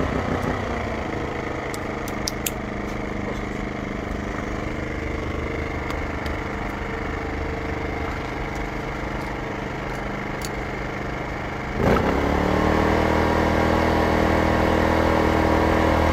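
Small 2500-watt portable generator, not run for a long time, freshly started and running with a steady note. About twelve seconds in its engine speeds up, the pitch rising and the sound growing louder, then it holds steady at the higher speed.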